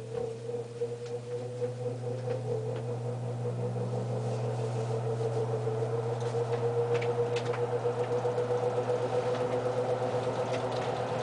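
GE F17W13 20-inch electrically reversible box fan running, its motor humming under a steady rush of moving air. The rush of air grows louder over the first half and then holds steady, as the fan comes up to speed in reverse.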